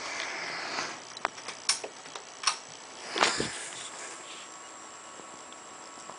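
Harbor Breeze Breezeway 30-inch hugger ceiling fan running with a steady hum. Over it come a short rush of noise at the start, a few sharp clicks, and a louder breathy rush a little past three seconds in, after which only the fan's steady sound remains.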